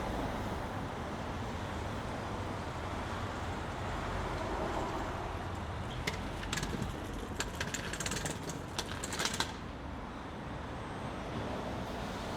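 City street traffic noise, steady, with a run of quick, irregular sharp clicks from about six to nine and a half seconds in.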